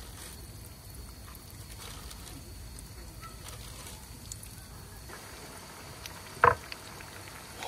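Crumbed fish pieces shallow-frying in a pan of hot oil: a low, steady sizzle, with one sharp tap about six and a half seconds in.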